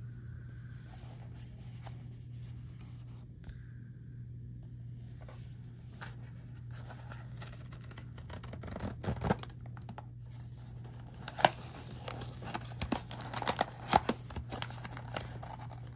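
A blind box's packaging being opened by hand: wrapping tearing and cardboard scraping, with sharp clicks and crinkles that grow busier and louder in the second half.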